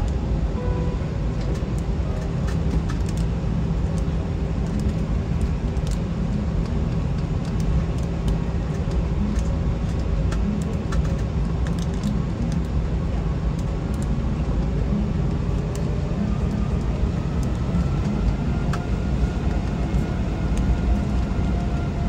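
Steady low rumble inside an Airbus A321 cabin while the aircraft taxis after landing, with a faint whine that rises slowly in pitch in the second half.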